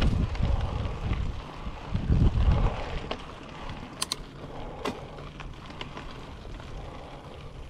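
Yeti SB5 mountain bike rolling along a dirt trail: tyre rumble and drivetrain rattle, with wind buffeting the microphone in gusts over the first few seconds and a few sharp clicks around the middle.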